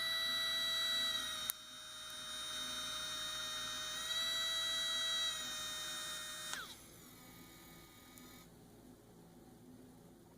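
3Doodler 3D pen's filament-feed motor whining steadily as it pushes plastic through the hot tip. It dips briefly about a second and a half in, then runs on and cuts off about six and a half seconds in, its pitch falling as it spins down, leaving a faint hum.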